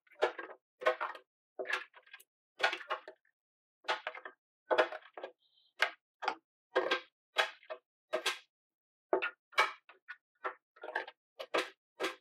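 Thick blended chile marinade being poured and worked over chuck beef: a run of short, irregular strokes, about two a second, with quiet gaps between.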